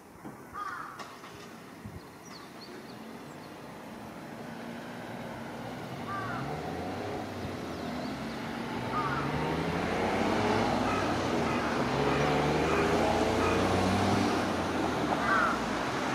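Carrion crow giving short, hooked, hiccup-like calls, one at a time and a few seconds apart; the uploader takes them for hiccups or a retching stomach. From a few seconds in, a motor vehicle's engine grows louder with rising tones and stays the loudest sound.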